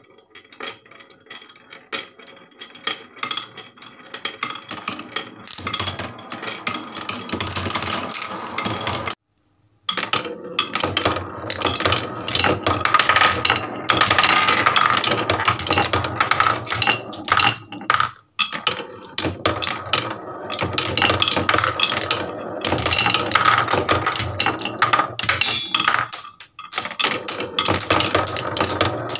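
Many glass marbles rolling and clattering down wooden HABA marble-run slopes, a dense rattle of clicks that builds up, breaks off briefly about nine seconds in, then carries on.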